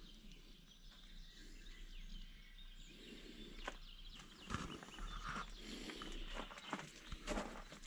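Quiet outdoor ambience with footsteps crunching on gravel, the steps louder and more frequent in the second half.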